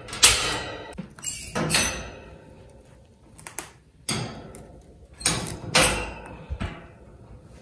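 A series of knocks and rattles, about five spread over several seconds, each short and sharp.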